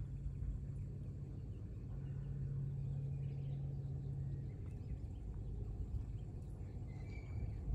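Outdoor ambience: a steady low hum with a rumble beneath it, and a few faint high chirps near the end.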